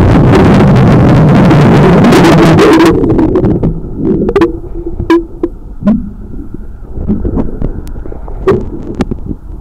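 Underwater, a loud rush of bubbles for about the first three seconds, then a quieter low rumble with scattered sharp clicks and knocks against the hull or the camera housing.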